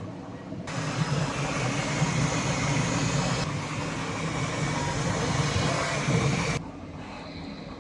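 Bambu Lab 3D printers running: a steady mechanical whir and fan noise that starts suddenly about a second in and cuts off suddenly near the end.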